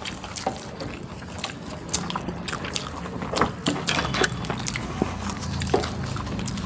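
Several people eating rice by hand: chewing and wet mouth and lip smacks, with fingers working and scooping rice against brass plates, giving many small irregular clicks. A faint low steady hum runs underneath.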